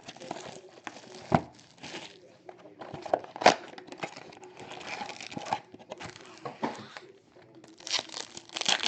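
Trading card pack wrappers crinkling and tearing as packs are opened and handled, with a few sharp clicks, the loudest about one and a half and three and a half seconds in.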